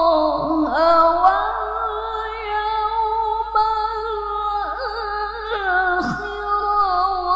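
A woman reciting the Qur'an in the melodic tilawah style, holding one long, drawn-out phrase. She adds ornamental turns in pitch near the start and twice about two-thirds of the way through.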